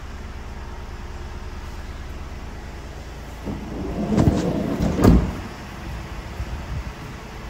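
The sliding side loading door of a Ford Transit Custom van rolls along its runner and shuts with a heavy thump about five seconds in, over a steady low hum.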